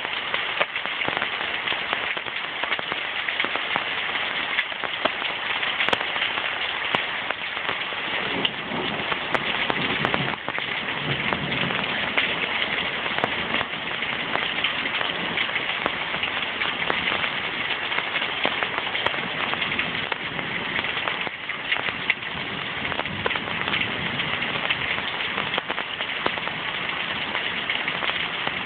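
Heavy downpour: dense, steady rain hiss full of close drop impacts, falling on the trees and the lake.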